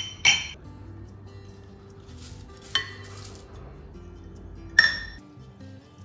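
Metal measuring cup clinking against the rim of a glass mixing bowl as it is emptied: two quick clinks at the start, one a little before the middle and one about five seconds in, each with a short ring.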